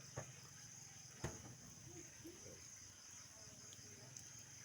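Near silence with a steady high-pitched hum, broken by a soft click and then a sharper knock about a second in.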